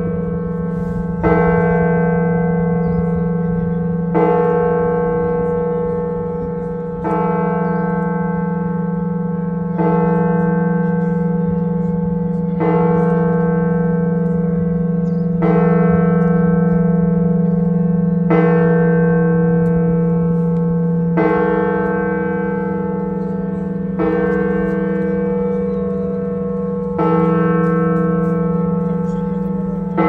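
A large Russian Orthodox church bell struck in slow, even single strokes, about one every three seconds. Each stroke rings on and fades into the next over a steady deep hum.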